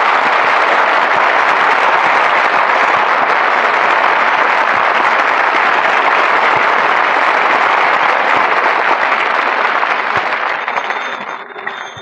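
Studio audience applauding steadily after a song, the applause dying away near the end; heard on an old radio broadcast recording.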